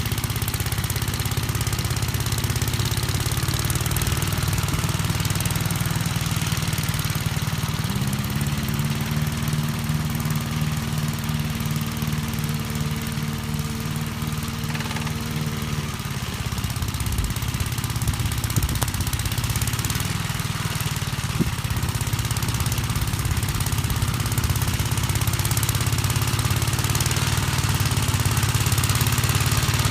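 1959 Gravely Model L tractor's single-cylinder engine running steadily. About eight seconds in its pitch steps up and holds, then drops back to the lower speed about eight seconds later.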